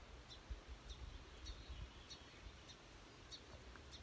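Faint outdoor quiet in which a bird gives a short high chirp over and over, steadily about every two-thirds of a second, over a faint low rumble.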